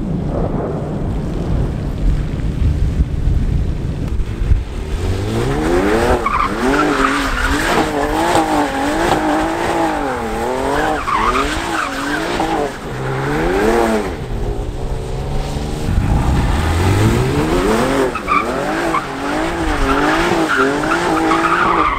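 The 2018 Ford GT's twin-turbocharged 3.5-litre V6 being revved hard and repeatedly while it spins donuts, its pitch rising and falling in quick waves with several sharp climbs, over tyres skidding on wet pavement. The first few seconds hold a steadier, lower engine sound before the revving begins.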